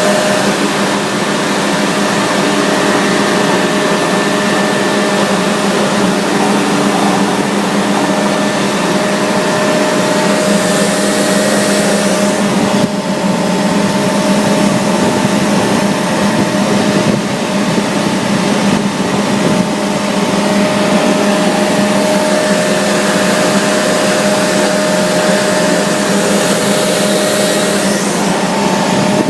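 Industrial compressed-air machinery running steadily: an even, loud mechanical drone with a constant hum and whine and no change in speed.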